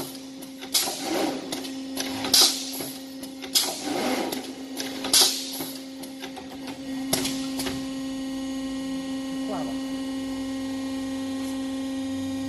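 Brick force ladder mesh welding machine running: a series of sharp hissing strikes, roughly one every second or so, over a steady electrical hum. The strikes stop about seven seconds in, leaving only the hum.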